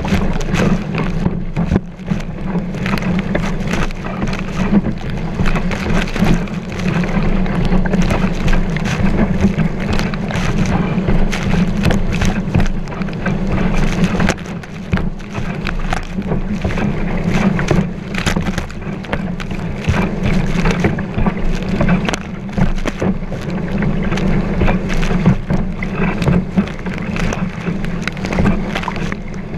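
Kiteboard skimming across waves: continuous water rush and spray against the board, with frequent sharp slaps as it hits chop, and wind buffeting the microphone. Heard close up from the board's deck at water level.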